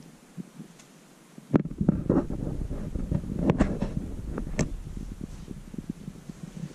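Orange-and-white domestic cat purring close to the microphone: a low, rhythmic rumble that grows much louder about a second and a half in, with a few sharp clicks and rustles over it.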